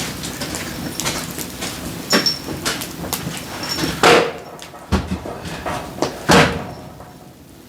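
Split firewood logs knocking and clattering as they are handled and stacked, with a run of small knocks and several loud sharp ones, the loudest about four and six seconds in.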